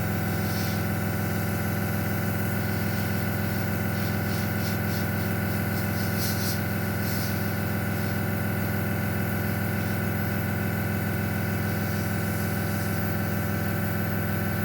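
Small airbrush compressor running with a steady electric hum, with a few short hisses of the airbrush spraying paint near the middle.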